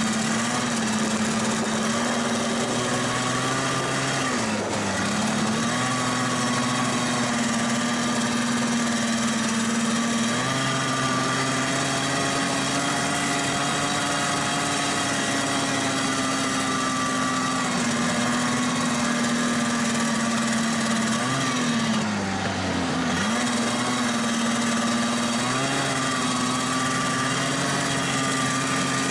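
Vintage snowmobile's two-stroke engine running steadily at trail speed, heard from on board the sled. Its pitch dips briefly and climbs back twice, about five seconds in and again about three quarters of the way through, as the throttle eases off and comes back on.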